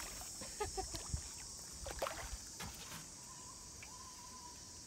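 Light splashing and a few sharp clicks in the first three seconds as a hooked fish is played at the water's surface, over a steady high-pitched insect buzz.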